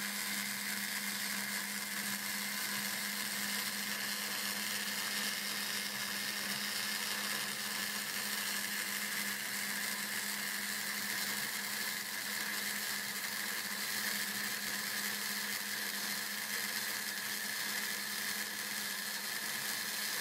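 CNC router spindle running steadily with a straight bit facing a wooden board, a constant motor whine mixed with the hiss of the bit cutting.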